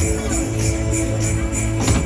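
Loud music with a steady bass and a jingling beat, the kind played over a fairground ride's speakers.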